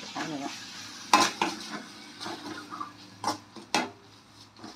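Perforated steel ladle stirring and scraping tomato-onion masala with fresh spice powders in a steel kadai, clinking sharply against the pan several times, over a sizzle of the masala frying.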